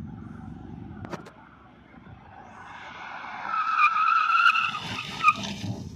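Maruti Suzuki Baleno's tyres squealing under hard emergency braking. A wavering, high-pitched squeal builds from about two and a half seconds in, then stops with a short sharp chirp near the end as the car comes to a halt.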